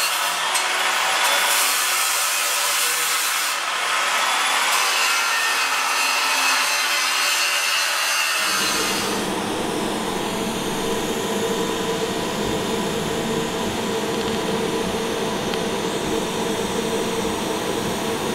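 Metal grinding on a steel drive shaft tube: a harsh, hissing scrape. About eight seconds in it changes abruptly to the steady buzzing hum of TIG welding at the end of the tube.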